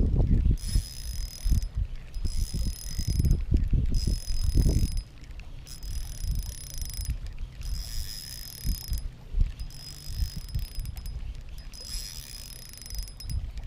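Spinning reel being wound against a heavy fish: a high whirring from the reel comes in stretches of about a second, with short pauses between turns of the handle. A low rumbling noise sits under it for the first five seconds.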